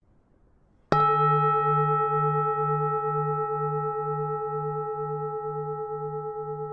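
A Buddhist temple bell struck once about a second in, then ringing on with a long, slowly fading hum of several steady tones. The deepest tone pulses about twice a second.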